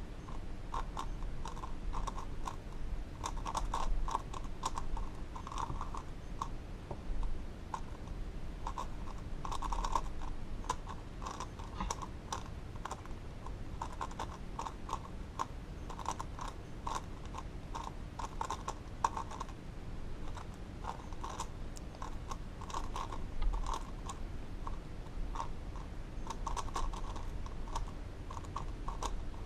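Plastic Megaminx puzzle (X-Man Galaxy V2) being turned quickly in a speedsolve, a continuous run of rapid clicks and clacks from the sculpted faces snapping into place.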